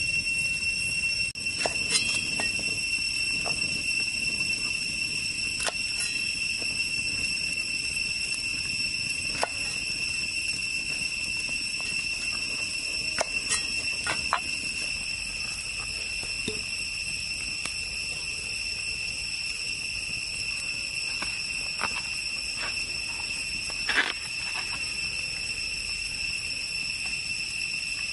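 Steady, high-pitched chorus of insects, unbroken throughout, with scattered sharp clicks and knocks over it.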